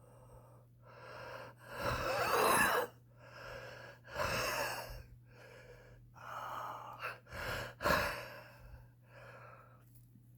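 A smoker's laboured, wheezing breaths, about eight in a row with a wavering whistle in them, loudest about two seconds in, with short sharp gasps around eight seconds. The wheeze is the strain of smoking on the lungs.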